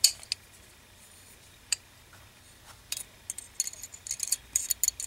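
Steel pistol parts of a Ballester Molina .45 ACP clicking and clinking as the recoil spring and guide rod are fitted into the slide during reassembly. A few separate clicks over the first three seconds, then a quick run of clicks near the end.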